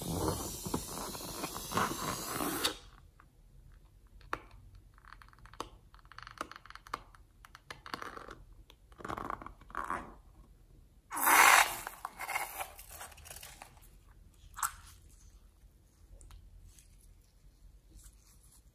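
A liquid-filled rubber balloon, cut open at the tip, being squeezed so its white liquid spurts out onto slime. It starts with a loud rush that stops suddenly after about two and a half seconds, then goes on as quieter irregular wet squishing and crackling, with a second short loud spurt about eleven seconds in.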